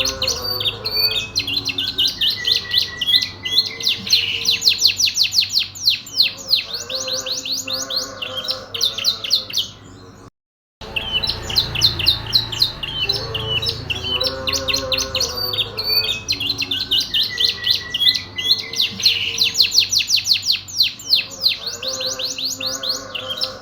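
Domestic canary singing fast trills and chirps in a steady run of song. It breaks off briefly about ten seconds in, then the same song passage plays again.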